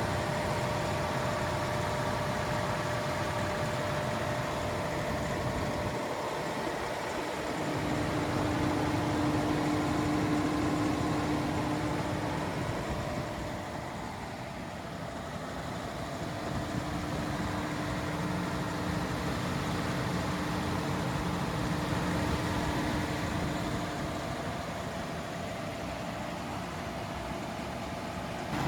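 Large FG Wilson 715kVA diesel generator set with a Perkins engine running steadily on test, a continuous engine drone with a steady whine on top. It gets briefly quieter about halfway through, then settles back.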